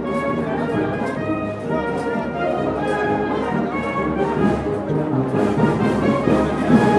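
A brass band playing music, with sustained horn and trumpet notes over a soft beat about once a second.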